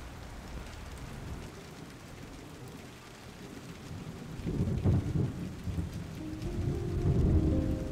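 Rain falling, with heavy, uneven low rumbling from about halfway through, as rain and wind batter the microphone.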